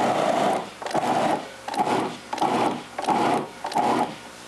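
Electric food processor chopping apples in its bowl, run in short bursts about twice a second, which stop near the end.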